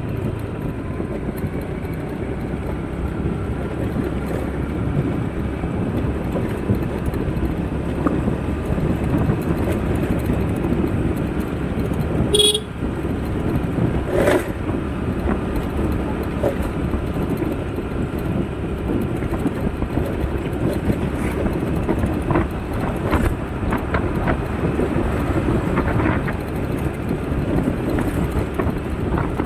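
Road traffic: a steady rumble of vehicles, with a couple of brief horn toots about midway.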